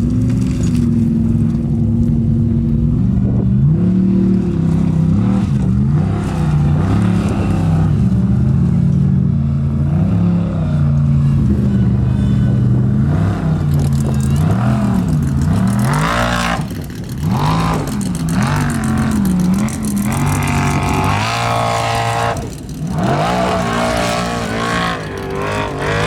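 Formula offroad race truck's engine revving hard, its pitch swinging up and down again and again as the throttle is opened and closed. In the last several seconds it drops lower and varies more.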